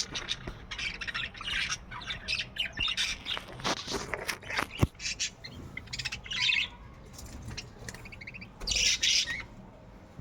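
A flock of budgerigars chattering, with fast runs of chirps and scratchy squawks. A single sharp click about five seconds in.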